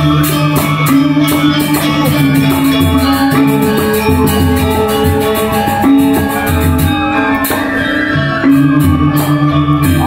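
Balinese gamelan playing a dance accompaniment: metallophones ringing in held, overlapping tones over a low gong-like drone, with fast, even cymbal strokes at about four a second.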